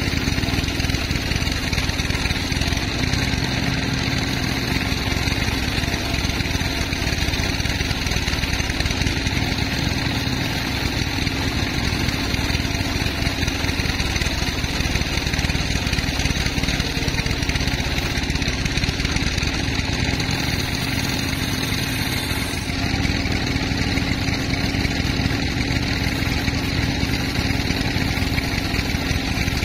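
Sawmill machinery running steadily: a continuous motor-driven drone. Its higher part changes slightly about two-thirds of the way through.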